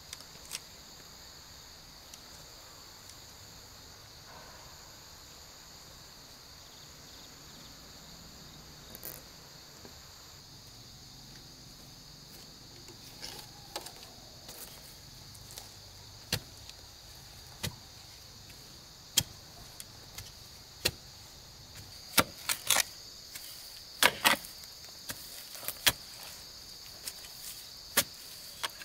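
Steady high-pitched drone of insects, with sharp single knocks starting about halfway through and coming closer together near the end.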